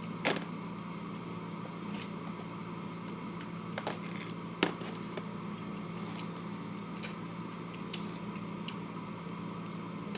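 Eating sounds: a few sharp clicks and smacks scattered through a stretch of chewing, over a steady low hum.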